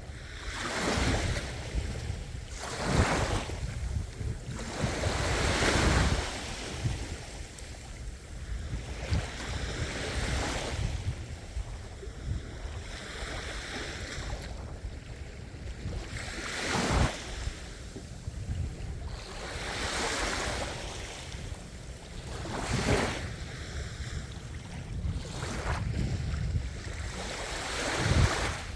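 Sea waves breaking and washing on a shore. The surf swells and falls away every three to six seconds.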